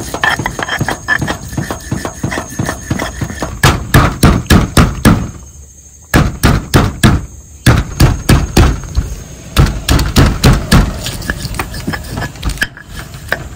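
Stone pestle pounding fresh red chillies, shallots, garlic and candlenuts on a flat stone mortar, crushing them into a chilli paste: quick repeated knocks of stone on stone, about three or four a second, with a short pause about five seconds in.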